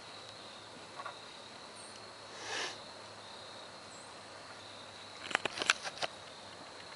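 Steady high-pitched insect drone, like crickets, with a brief rushing noise near the middle and a quick run of sharp clicks about five seconds in.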